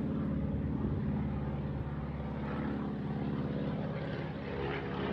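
Small propeller airplane flying over, its engine giving a steady drone.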